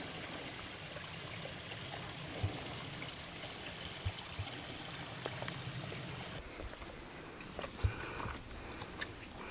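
Steady rushing outdoor background with a few soft knocks. About six seconds in, a high, steady, finely pulsing insect buzz starts and keeps going.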